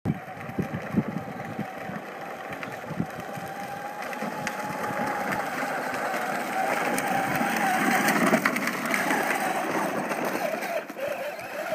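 The electric drive motor of an 18-volt battery-powered ride-on toy tractor whining steadily as it drives, with its wheels rolling over dirt. It grows louder as the tractor comes close, about two-thirds of the way in, then eases as it moves away.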